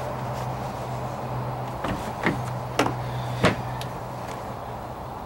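Light clicks and knocks as hands handle wiring in a boat's molded side compartment: four sharp ones from about two seconds in, the last the loudest, over a steady low hum that fades about four seconds in.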